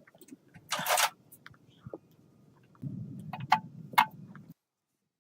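Workshop tool and metal-handling sounds on an engine being assembled: scattered sharp metallic clicks, a short hiss about a second in, then a low hum lasting about a second and a half with two sharp clicks in it.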